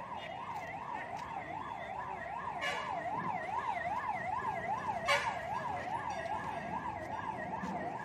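Fire engine siren in a fast up-and-down warble, about three sweeps a second, with two short bursts of noise about two and a half and five seconds in.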